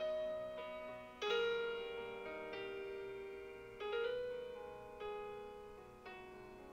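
Slow, soft piano music: chords struck every second or two and left to ring and fade.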